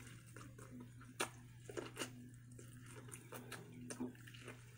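Corn on the cob being bitten and chewed close to the microphone: faint, irregular wet clicks and smacks, over a steady low hum.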